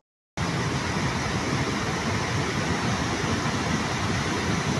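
Swollen, muddy floodwater rushing down a steep channel: a steady, loud roar of fast water that starts after a brief gap of silence.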